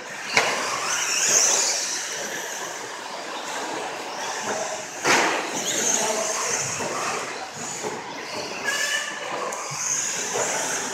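Radio-controlled stadium trucks racing on an indoor dirt track: motors and tyres whirring at high pitch, with a sharp clatter about half a second in and another about five seconds in as trucks land or hit something.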